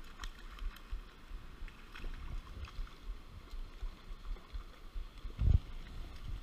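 Low, uneven buffeting noise on the microphone over faint creek water, with scattered light ticks and one heavy low thump about five and a half seconds in.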